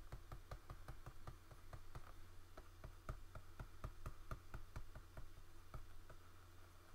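Faint, quick taps and clicks of computer input while digitally painting in Photoshop, about four a second, over a steady low hum.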